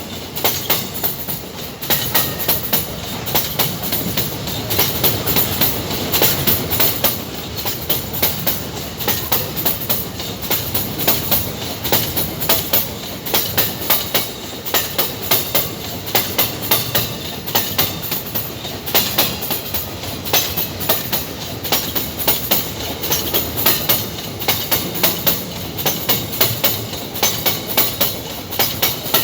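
Empty iron-ore wagons of a freight train rolling past, their wheels clacking over the rail joints in quick repeating groups of beats.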